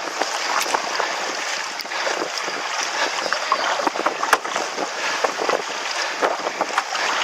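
Windsurf board running across choppy water in strong wind: a steady rush of water and wind with many short knocks and splashes as the board hits the chop, and wind buffeting the microphone.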